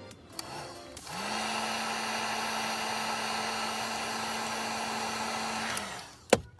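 Heat gun switched on, its fan motor spinning up and then blowing steadily for about five seconds before it is switched off and winds down, heating a heat-shrink solder connector on a wire. A sharp click follows near the end.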